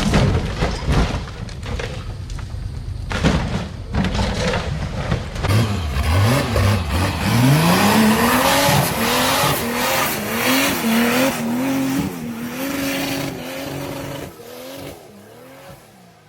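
An off-road 4x4's engine revs up and is held at high revs over a dense rushing noise, after a few seconds of irregular knocks and thuds. The engine fades away near the end.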